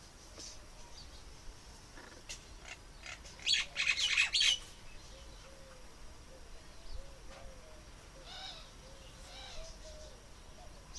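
Birds calling: a quick, loud run of high chirps about three and a half seconds in, over a string of soft, low, repeated coos. A few fainter chirps come near the end.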